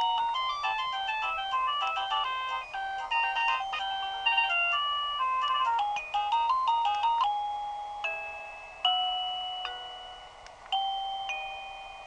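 A wireless doorbell's plug-in chime box playing its built-in electronic chime tunes: a quick melody of short beeping notes for the first several seconds, then single ringing notes about two seconds apart that fade out.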